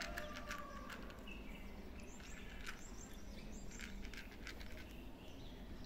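A cat crunching dry kibble from a plastic plate: faint, irregular clicky crunches, with a few brief bird chirps behind.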